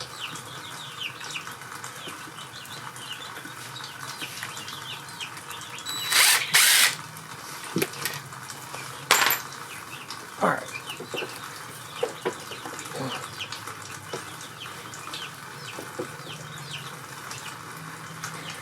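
Short bursts from a power tool while engine parts are being loosened: two close together about six seconds in and one about nine seconds in, with scattered light clinks of tools on metal. Faint bird chirps run underneath.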